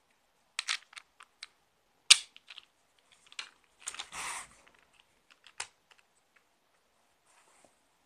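Sharp plastic clicks and rattles from the GX1000 gaming mouse's small weight cartridge being handled and snapped open, the loudest click just after two seconds in. There is a short scraping rustle about four seconds in.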